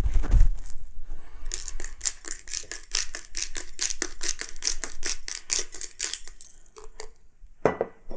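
Rapid, irregular dry crackling clicks, several a second, for about five seconds, followed near the end by a brief vocal grunt.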